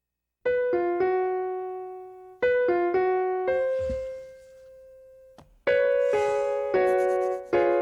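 Short piano-like keyboard melody in three phrases. Each phrase is a few quick struck notes ending on a held note that fades away.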